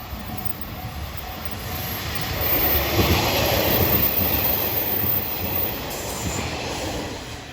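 A diesel railcar passing close by, its running and wheel noise building to a peak about three to five seconds in and easing off near the end. A level-crossing warning bell dings steadily, heard plainly at the start and drowned out as the train goes by.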